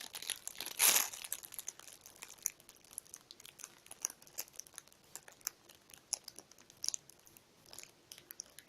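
Foam squishy toys being squeezed: a short crinkly rustle about a second in, then faint scattered crackles and ticks as they are handled.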